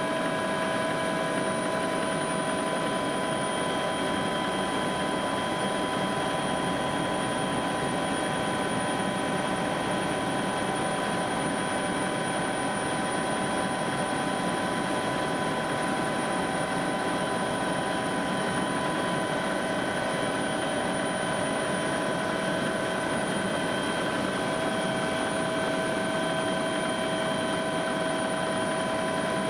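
Helicopter in flight, heard from inside the cabin: a steady drone of engine and rotor with a constant high whine, unchanging throughout.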